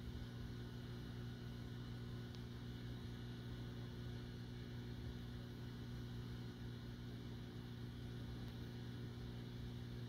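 Steady low electrical hum made of a few fixed tones.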